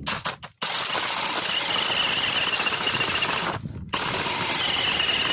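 Power ice auger drilling through thin ice, running in two spells with a brief stop about three and a half seconds in, a high whine riding over the drilling.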